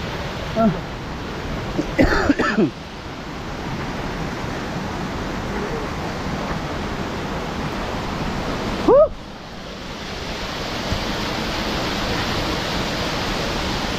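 Steady rush of a rocky hill stream below a waterfall, the water noise swelling a little in the second half. Short vocal exclamations break in about two seconds in and, loudest, about nine seconds in.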